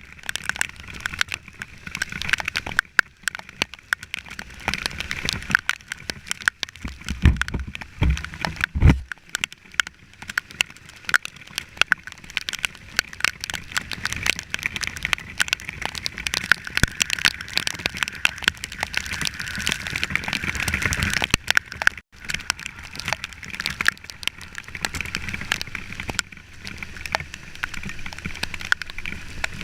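Rain: a dense patter of drops striking close to the microphone, sharp small clicks over a steady hiss. A few low thumps come about seven to nine seconds in.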